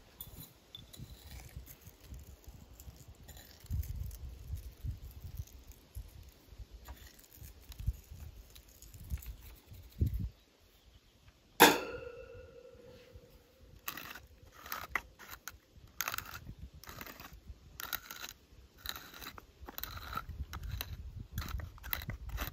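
Food-prep handling noises: rustling and knocks, then one sharp metallic clank about halfway that rings out for a second or two, followed by a run of quick clicks and taps.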